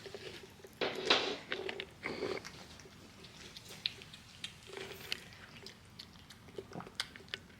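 A cat eating, with small clicks of chewing and crunching its food, and a few brief rustling bursts.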